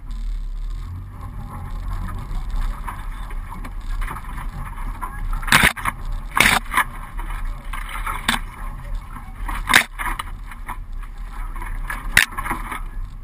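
Suzuki four-wheel drive driving along a sandy bush track: a steady low engine and road rumble, broken by about five sharp knocks and scrapes in the second half, the loudest near the end.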